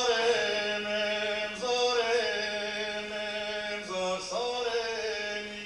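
Male voices singing an Armenian folk song without instruments: a voice holds long notes that slide into pitch, in phrases of about two seconds, over a steady low drone.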